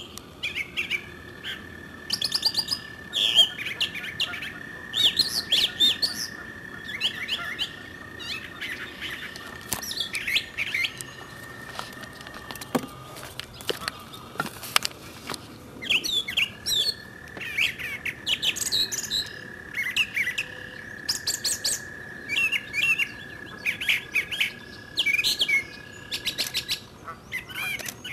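Many songbirds chirping and calling over one another in quick, overlapping phrases. A steady high thin tone is held under them twice, each time for about ten seconds, the first cutting off abruptly near the middle.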